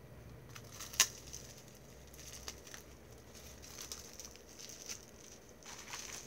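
Perfume oil bottles and their packaging being handled: one sharp click about a second in, then soft rustling and scattered light taps.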